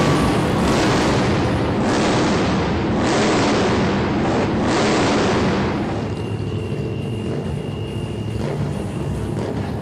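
Motorcycle engines revving hard over crowd noise, coming in loud surges for about six seconds, then settling to a lower, steadier level.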